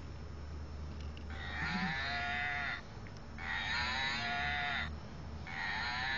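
A cow dog toy's sound box mooing three times in a row, each moo about a second and a half long and dropping in pitch at the end.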